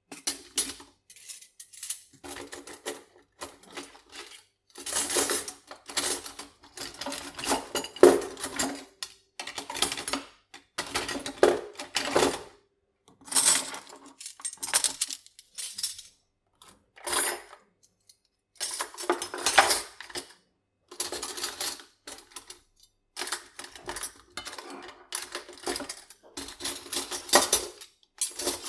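Metal cutlery (forks, spoons and knives) clinking and rattling against each other in repeated bursts of one to a few seconds, separated by short pauses.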